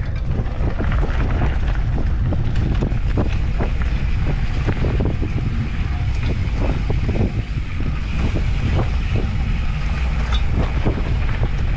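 Off-road handcycle rolling fast down a dirt trail: wind buffeting the microphone and a steady low rumble from the tyres, with frequent small clicks and crackles from grit and debris under the wheels.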